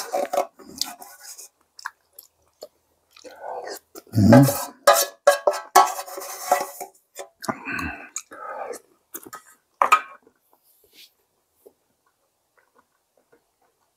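Close-up eating of hand-torn dough soup: slurping and chewing, with utensils clinking against the bowl. It goes in a run of bursts and clicks, loudest about four seconds in, and dies away about ten seconds in.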